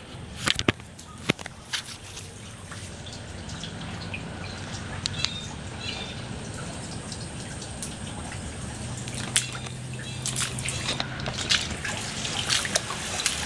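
Water dripping and splashing over a steady rushing noise, with scattered sharp splashes or knocks that come more often near the end.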